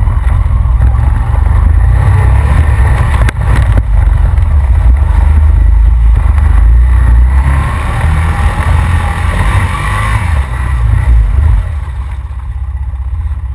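Honda Rancher ATV's engine running under way on a rough, muddy trail, with a couple of sharp knocks about three seconds in; it eases off and gets quieter near the end.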